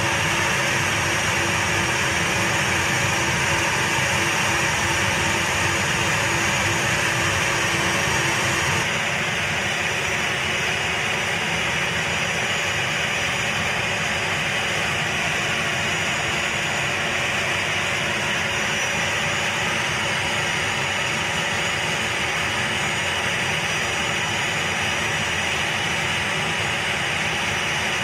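Steady jet turbine noise on an aircraft flight line: a continuous rush with a held whine, from an A-10C's turbofan engines or ground support gear running. About nine seconds in the sound shifts slightly as its higher whistle drops away.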